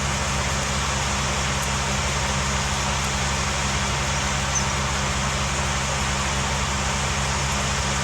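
A vehicle engine running steadily: a constant low hum with an even hiss over it, with no change in speed.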